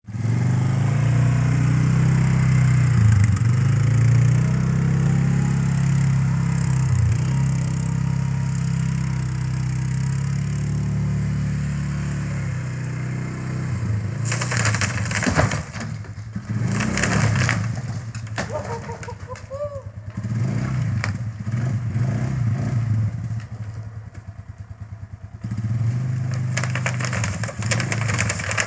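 Polaris Sportsman 500 ATV's single-cylinder four-stroke engine running, revving up and easing off as the quad is driven around. About fourteen seconds in, a few seconds of rough crackling clatter come over it, then the engine idles and pulses more unevenly before picking up again near the end.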